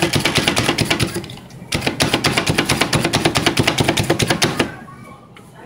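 Knife rapidly chopping fresh mint, about ten quick strokes a second, in two runs with a brief pause between them, stopping shortly before the end.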